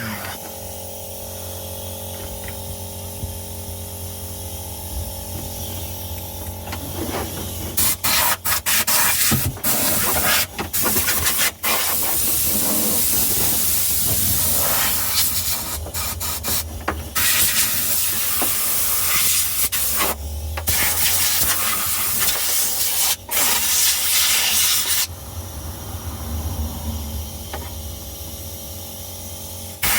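Compressed-air blow gun hissing in repeated blasts that start and stop abruptly, from about eight seconds in until near the end, blowing brushed-off rust and dust from the car body. A steady hum from the running air compressor lies underneath.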